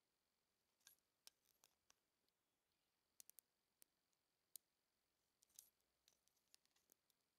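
Near silence broken by faint, irregular small metallic clicks and taps: a digital caliper's steel jaws and slide being handled against a steel rule while it is measured.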